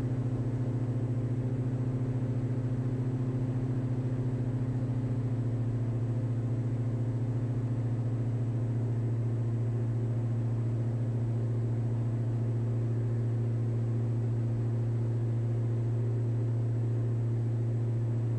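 Diamond DA42 Twin Star's two engines and propellers droning steadily in the climb, a constant low hum heard from inside the cockpit.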